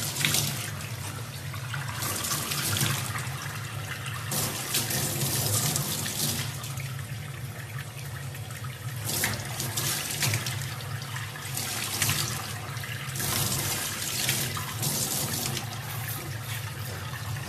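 Tap water running into a stainless steel sink and splashing, steady throughout. The splashing surges louder every second or two as a baby chimpanzee's hands break the stream.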